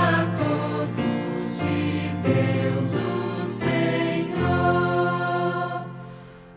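Instrumental Adventist hymn music moving through chords, ending on a long held chord that fades away near the end.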